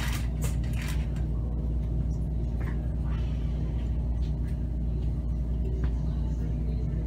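Steady low mechanical hum and rumble of a railway station platform, with a few faint clicks scattered through it.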